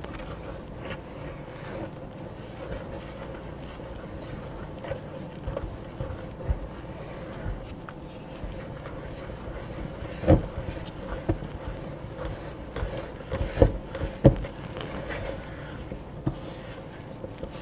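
Silicone spatula stirring flour into wet batter in a stainless steel mixing bowl: soft scraping and rubbing, with a few sharper knocks of the spatula against the bowl, the loudest about ten seconds in and two close together around fourteen seconds. A faint steady hum runs underneath.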